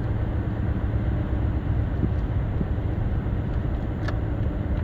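Road noise inside a moving car: a steady low rumble of tyres and engine, with a small click about four seconds in.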